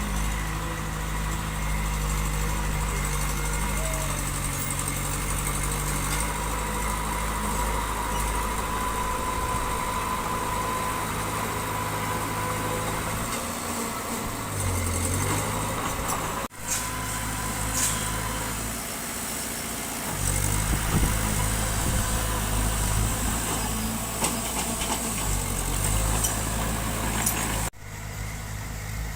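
Diesel engine of heavy construction machinery running, its pitch and load shifting several times. The sound breaks off abruptly twice.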